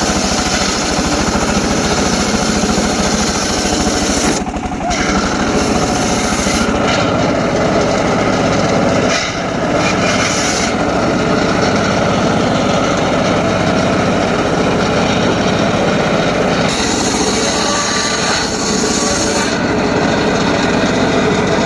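Homemade circular saw rig running and cutting short teak wood, a dense high-pitched cutting noise over a steady, fast-pulsing motor drone. The high cutting noise briefly drops a few times.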